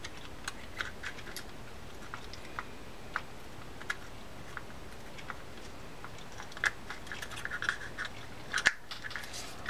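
Scattered small clicks and light clinks of a Shimano Corsair 400 baitcasting reel's parts being handled and fitted together. They come closer together, with a few sharper clicks, in the last few seconds.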